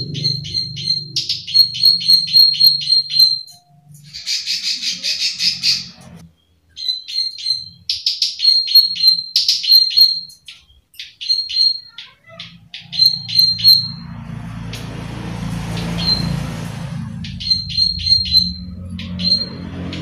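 Plain prinia (prenjak sawah) giving its 'klik klik' call: runs of sharp, high clicking notes, about five a second, broken by short harsh buzzy rattles.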